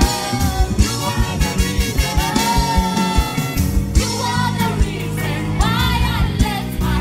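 Live gospel band music with a drum kit beating throughout, and a woman's solo voice singing with vibrato in the second half.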